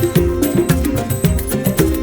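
Background music with a steady beat: rhythmic percussion and plucked or pitched notes, in a folk or Latin style.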